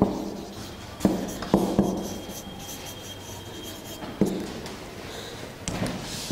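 Marker writing on a whiteboard: rubbing strokes broken by about six sharp knocks as the marker strikes the board, each with a short low ring from the board.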